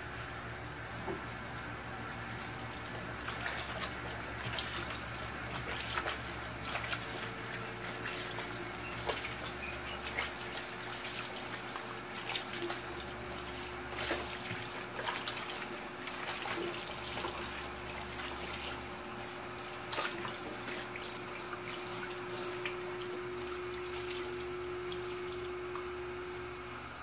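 Tap water running and splashing into a stainless steel sink, with irregular wet rubbing and splashing of hands washing raw chicken pieces.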